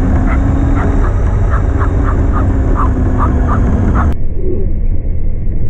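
Onboard sound from a camera riding on a Traxxas X-Maxx RC monster truck driving fast over grass: loud wind buffeting and rumble, with a steady motor whine and a run of short chirps over it. About four seconds in the sound turns duller.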